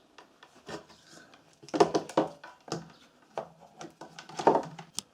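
Irregular clicks, taps and rubbing of multimeter probe tips and the iron's plastic plug being handled as the probes are set on the plug's live and neutral pins, with louder scraping twice.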